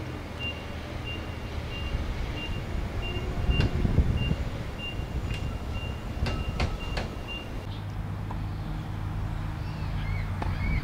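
A low steady rumble like distant traffic, with a short high-pitched beep repeating in quick regular pulses and a few sharp clicks. About three-quarters of the way in the beeping stops and a steadier low hum takes over.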